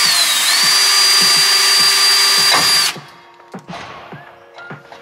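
Cordless drill running at full speed with its bit pressed against the steel of a pickup's spare-tire carrier, a high whine that rises and then holds steady; it stops suddenly about three seconds in. The bit is a wood bit and is not cutting into the hard metal.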